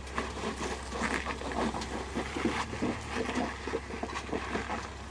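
Jeep's engine running low and steady while the vehicle creeps over rock, with irregular crunching and clicking of tyres and rock.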